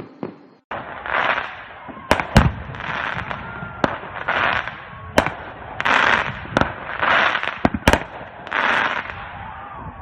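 Fireworks going off: about five half-second bursts of rushing hiss at roughly even spacing, with several sharp bangs in between, the loudest about two and a half seconds in.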